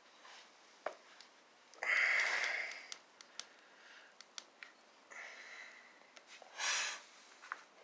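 A person breathing and sniffing close to the microphone: a loud breath about two seconds in, two more near the end, with a few light clicks between them.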